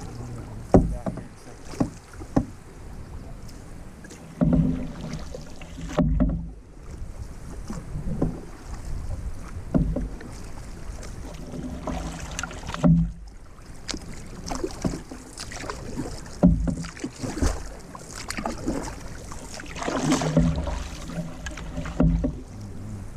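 Canoe paddle strokes: the blade pulling through lake water with splashes and drips, and water washing along the hull, in an uneven rhythm with a few louder thumps.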